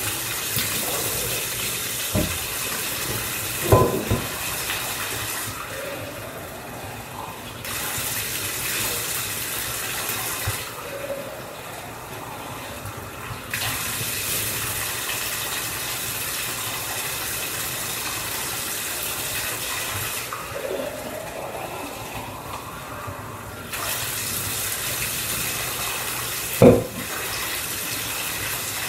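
Bathtub faucet water running while a puppy is rinsed, the splashing hiss swelling and easing in stretches of several seconds as a metal tumbler is filled and poured. A few sharp knocks, the loudest near the end.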